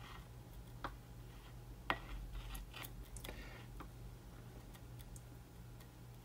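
Glue stick being rubbed over a glass 3D-printer build plate: faint scratchy strokes with a few small clicks as it taps the glass, the sharpest about two seconds in, over a low steady hum.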